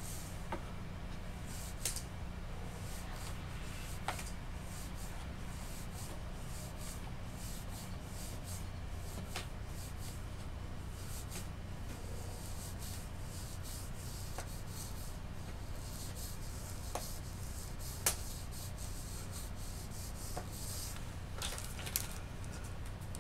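Hands rubbing and smoothing over the surface of a clay sculpture, a soft ragged brushing, with a few sharp light clicks scattered through it. A steady low hum runs underneath.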